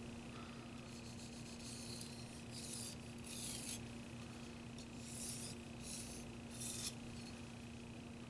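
Tojiro white-steel petty knife drawn across a wet 2000-grit Shapton Pro whetstone in trailing strokes: about six short, faint scratchy rasps, the last three coming a little closer together, over a steady low hum.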